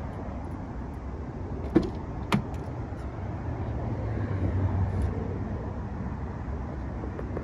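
Two sharp clicks about half a second apart, a little under two seconds in: the driver's door of a 2011 Porsche Boxster being unlatched and opened. A steady low rumble runs underneath.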